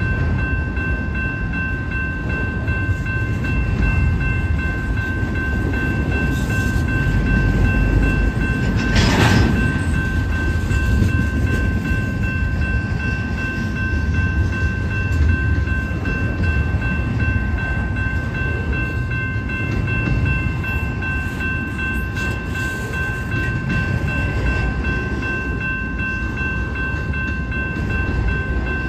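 Double-stack intermodal train's well cars rolling past: a steady low rumble of wheels on rail, with steady high-pitched ringing tones over it. There is a short hiss about nine seconds in.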